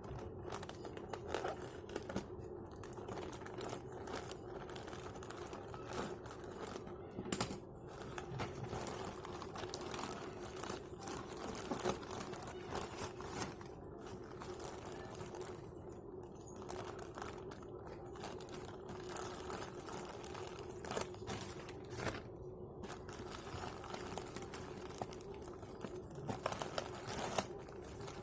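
Packaging being handled and opened: an irregular crinkling and rustling with scattered sharp clicks, over a faint steady hum.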